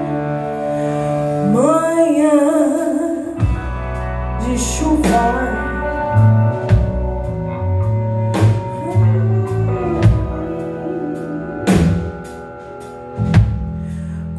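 A live blues-rock band playing: electric guitars, electric bass and a drum kit with cymbal hits, with a woman singing over them. The band drops back briefly near the end, then comes in again with a hard hit.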